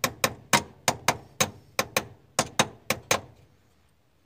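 Sharp metallic clicks, about four a second, from a wrench working the clamp on a car battery terminal as it is tightened. They stop a little after three seconds in.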